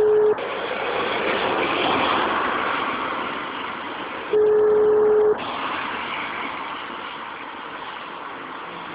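Telephone ringback tone of a call not yet answered: a steady single-pitched beep about a second long, repeating about every five seconds, one ending just after the start and another about four and a half seconds in, over a hissing, noisy phone line.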